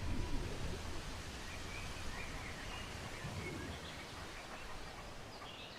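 Faint outdoor nature ambience: a steady background hiss with a few scattered, faint bird chirps.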